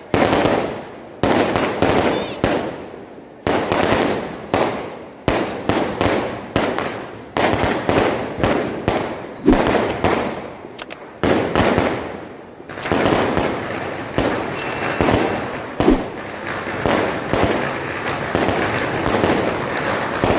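Aerial fireworks bursting close overhead, a bang every second or so, each dying away with crackle. About two-thirds of the way through, the bangs run together into a dense, near-continuous crackling.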